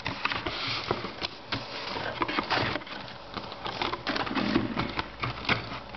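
Plastic crinkling and small irregular clicks of bagged plastic model-kit sprues and paper instructions being handled and lifted out of a cardboard kit box.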